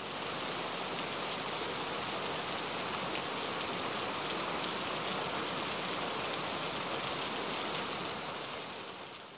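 Steady rain falling, an even hiss with a faint patter of drops, fading out near the end.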